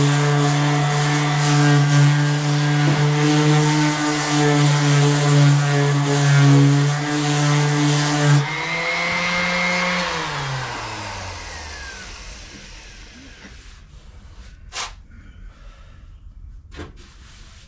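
Power sander running steadily on body filler. A little past the middle it is switched off: the hiss cuts out and the motor spins down with a falling pitch. Two light clicks follow near the end.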